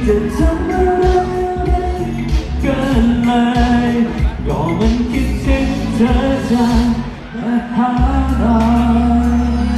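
Pop song performed live: a sung melody over amplified band music with a steady bass.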